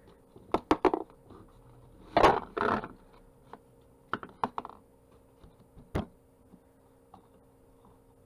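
Wooden colour pencils clicking and clattering against each other and the cardboard cylinder holder as they are handled in the tube: a few quick clicks, a louder rattle about two seconds in, then scattered clicks.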